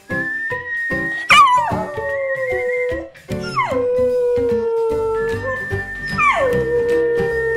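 Rottweiler puppy howling three times; each howl starts high, slides steeply down and then holds a long, steady note. Background music plays throughout.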